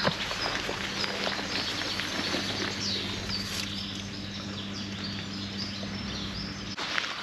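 Small birds chirping in short repeated calls over steady outdoor background noise and a low, even hum that stops abruptly near the end.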